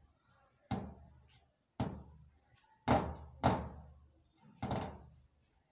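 Heavy drum hits in a slow, regular beat, about one a second with an extra hit now and then, each ringing out briefly.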